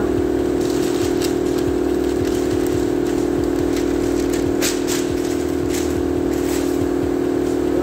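A steady mechanical drone runs throughout. Over it, masking paper crackles and rustles as it is pulled off a freshly painted bus panel, loudest just before five seconds in.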